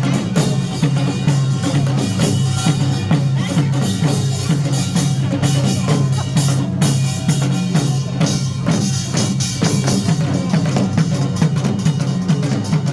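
Korean nongak (pungmul) percussion band playing a fast, driving rhythm of clanging gongs and drums.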